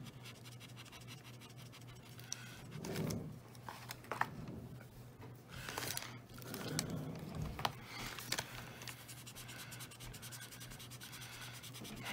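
Alcohol marker nib scratching and rubbing on paper in short strokes, faint, with a few light clicks of markers being handled.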